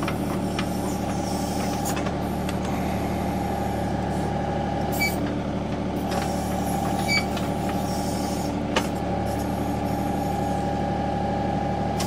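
Compact John Deere tractor's diesel engine running steadily under load as its 270B backhoe digs out a tree stump, with a few short clicks from the work about five, seven and nine seconds in.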